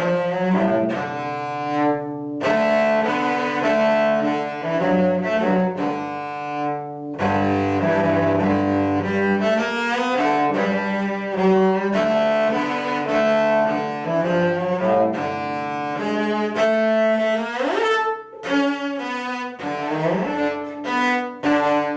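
Cello playing the lower line of a bluesy tune, a steady run of bowed notes. Near the end one note slides upward, followed by a brief break.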